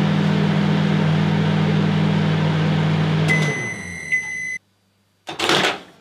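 Microwave oven running with a steady low hum that winds down about three and a half seconds in as the end-of-cycle beep sounds. Everything cuts off abruptly, then after a short gap comes a brief clattering burst.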